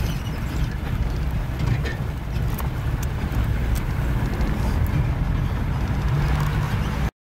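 Car engine running and tyres rumbling over a rough dirt track, heard from inside the cabin, with occasional light knocks; it cuts off suddenly near the end.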